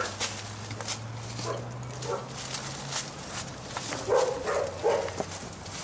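Crackling and snapping of twigs and leaves as someone pushes through ficus aerial roots. A few short, louder vocal sounds come about four seconds in, over a steady low hum.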